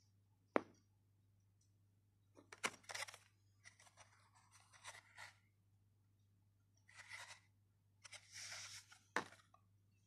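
Plastic blister pack of a Zippo lighter being handled: brief crinkling and rustling of the clear plastic and card in several short bouts, with a sharp tap about half a second in and another near the end.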